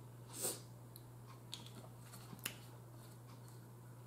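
Faint handling of a hot sauce bottle being shaken over a plate and recapped: a soft swish about half a second in, then a few light clicks.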